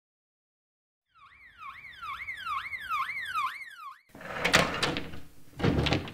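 Ambulance siren wailing quickly up and down, about twice a second, for nearly three seconds, then cut off sharply. Two loud clattering bangs follow, louder than the siren.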